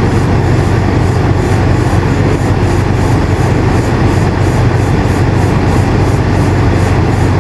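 Air conditioner running steadily: a continuous airflow hiss over a loud, deep, even hum.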